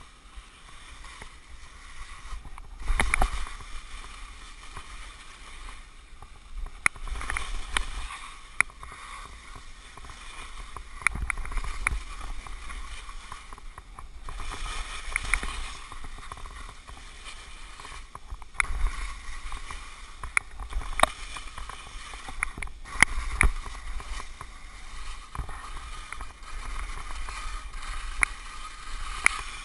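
Skis hissing and scraping through soft snow on a run of turns, swelling with each turn about every four seconds, with sharp clicks here and there. Wind rumbles on the microphone throughout.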